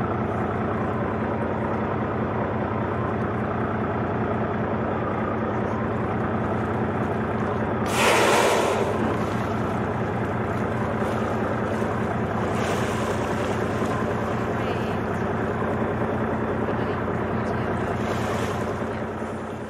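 Boat engine running steadily, with a loud whoosh lasting about a second around eight seconds in.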